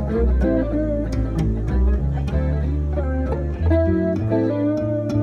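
Live band playing an instrumental passage: plucked guitar notes over a bass line, with a steady beat of sharp percussion hits.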